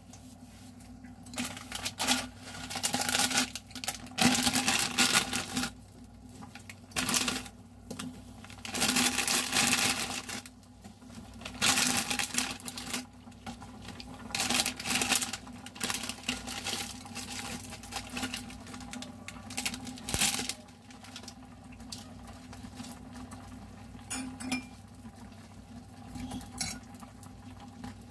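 Plastic instant-noodle packet crinkling in a series of bursts over the first twenty seconds as a block of dried ramen goes into a glass saucepan. After that comes quieter handling, with a few short clinks of metal chopsticks on the glass near the end.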